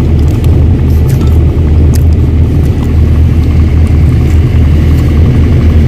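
An engine running steadily close by: a loud, low rumble.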